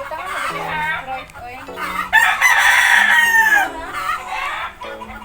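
A rooster crowing once, a long loud call that starts about two seconds in and falls away at its end, with shorter chicken calls before it.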